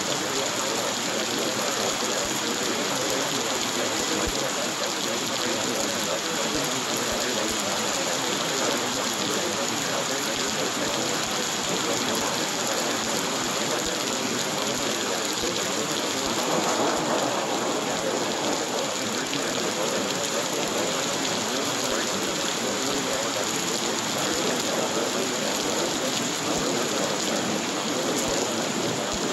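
Steady rain falling, a continuous recorded rain ambience with an even hiss and no pauses.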